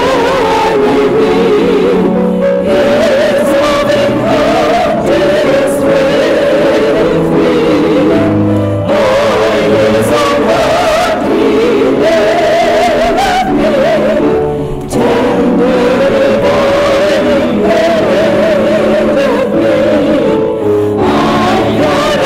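Church choir singing a sacred piece with instrumental accompaniment, in long held phrases with short breaks between them.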